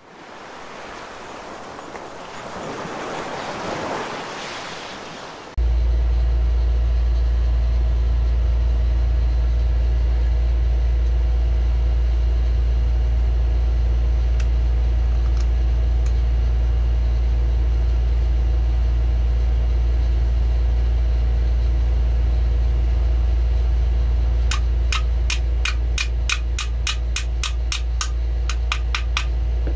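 A rising, rushing noise for about five seconds, then a loud steady low hum. Near the end, a quick run of light taps, about four a second, from a small brass-faced hammer striking the magazine.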